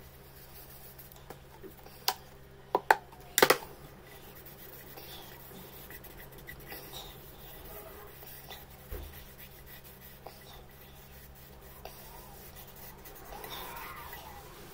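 A cloth rubbing and scrubbing by hand around the inside of a tarnished copper bowl. A few sharp knocks come between about two and three and a half seconds in, the loudest near three and a half seconds.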